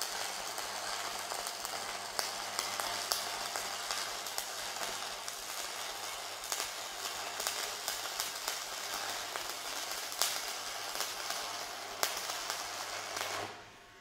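Shielded metal arc (stick) welding arc crackling and sizzling steadily at raised welding current, over a steady low hum. The arc and hum cut off suddenly just before the end as the electrode is drawn away.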